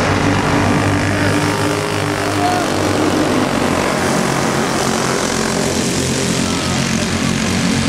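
Several small dirt-track racing kart engines buzzing steadily at high revs, their pitches shifting slightly as the pack runs on the oval.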